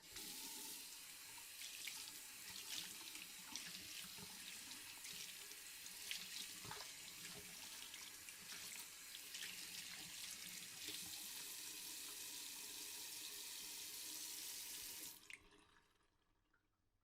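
Water from a tap running into a bathroom sink while a person washes their hands, with irregular splashes as the hands move in the stream. The water is shut off suddenly about fifteen seconds in.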